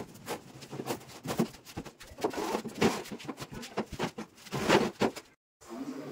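Sponge rubbed and dabbed over a textured painted wall in quick, irregular rasping strokes. The strokes stop abruptly a little over five seconds in, and a low steady hum follows.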